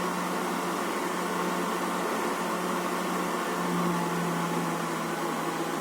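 Coffee drum roaster running steadily just after the beans are charged, its motor and fan giving a constant hum, a little louder about four seconds in.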